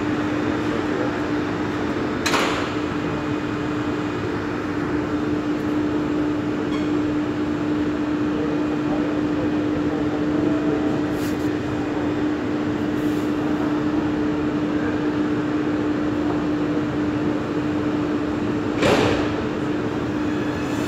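Prague metro M1 train standing at the platform, its onboard equipment giving a steady hum with one constant tone. A short knock comes about two seconds in, and near the end the sliding doors close with a thump.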